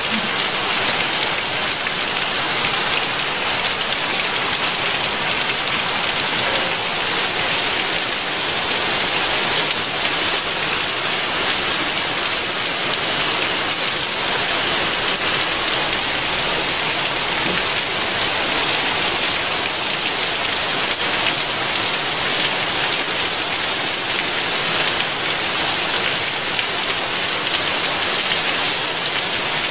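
Rain falling steadily, an even dense hiss with no letup.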